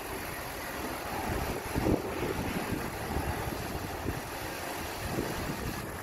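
Diesel engine of a MAN semi-truck running at low revs as the truck creeps forward, with a short louder knock about two seconds in.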